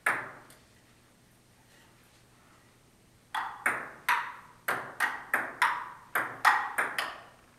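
Table tennis: a ping-pong ball clicking off paddles and the table, one click at the start, then a rally of about a dozen quick, sharp clicks from about three seconds in.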